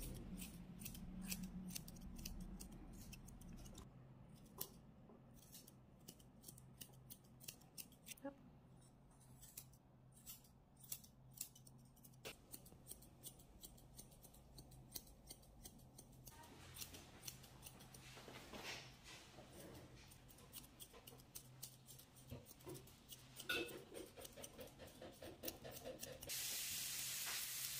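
Grooming scissors snipping again and again as they trim a Bichon Frise's fluffy coat, each cut a short, sharp click. A steady hiss comes in near the end.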